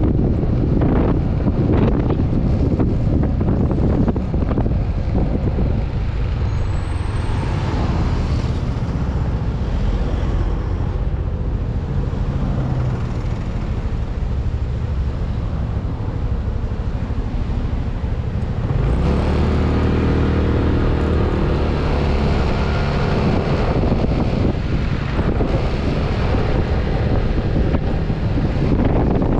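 Riding a Yamaha NMAX scooter in city traffic: wind rushing over the camera microphone with the scooter's engine and road noise underneath. About nineteen seconds in, a deeper engine hum with a clear pitch comes in for a few seconds, then fades back into the wind and traffic.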